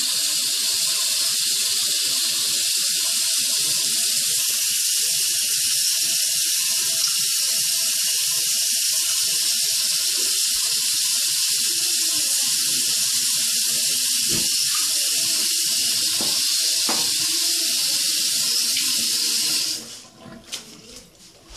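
Bathroom sink tap running steadily into the basin, shut off abruptly near the end, followed by a few faint knocks.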